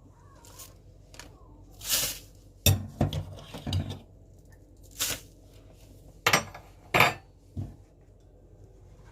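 Containers and utensils being handled: a string of separate knocks, clinks and brief rustles, with two sharp clacks near the end.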